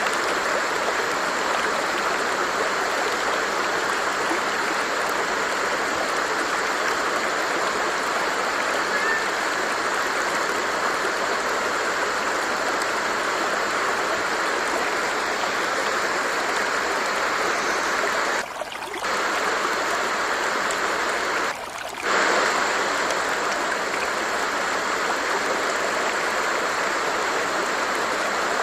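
Flowing stream water rushing and babbling steadily, with two short dips in level about two-thirds of the way in.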